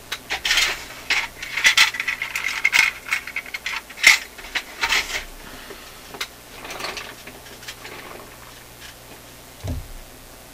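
Small metal parts and tools clinking, clicking and rattling as they are handled, with a ringing metallic clink about two seconds in; the handling dies down in the last few seconds, with a soft thump near the end.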